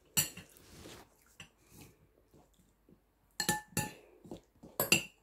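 A metal fork clinking and scraping against a ceramic plate while eating: a sharp clink right at the start, soft scrapes, then a few louder ringing clinks near the end.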